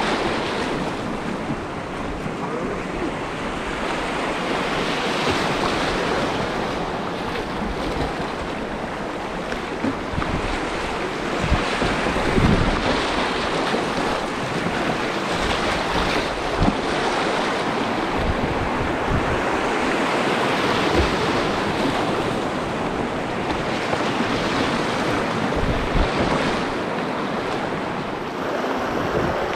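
Rushing whitewater of a creek rapid, a steady loud roar, with wind buffeting the microphone and a few brief low thumps.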